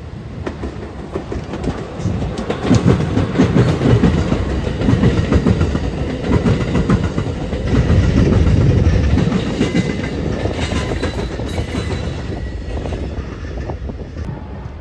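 Amtrak passenger train, a Siemens Charger diesel locomotive pulling single-level coaches, passing at speed: a rumble with rapid clickety-clack of wheels over the rail joints. It is loudest in the middle and fades as the last car goes by near the end.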